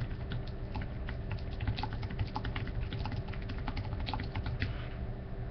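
Computer keyboard typing: quick, irregular keystrokes that stop shortly before the end, over a steady low hum.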